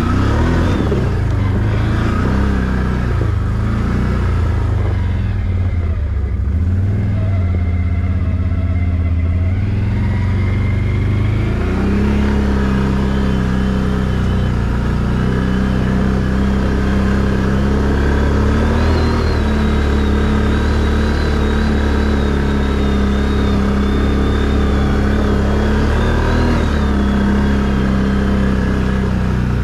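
ATV engine running steadily at low trail speed, its note stepping up and getting fuller about twelve seconds in and then holding. A thin high whine sits over it through the second half.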